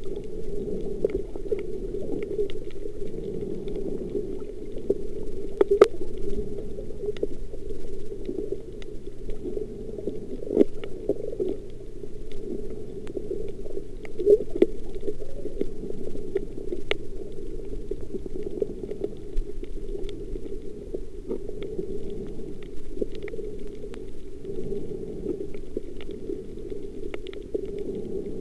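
Muffled underwater noise recorded while snorkeling: a steady dull rush of water with many small scattered clicks and crackles, and a few sharper ticks.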